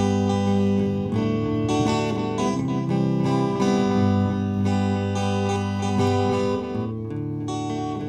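Background music: an acoustic guitar playing plucked chords that change about every second.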